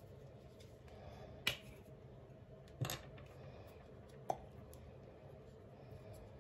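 Three sharp clicks from handling an electric red-and-blue-light hairbrush, the middle one a quick double click, over a faint steady hum.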